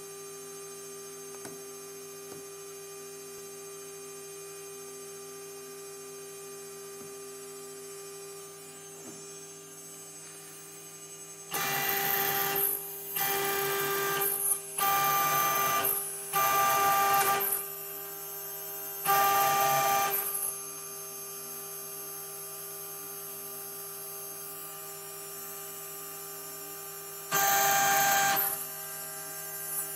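Jcut-3030 CNC engraver: a steady electric hum, then the axis stepper motors whine in short separate moves of about a second each, five in quick succession and one more near the end.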